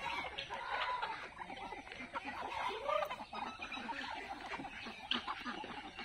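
A flock of chickens clucking and calling as they peck at scattered feed, with brief calls and a short rising call about three seconds in.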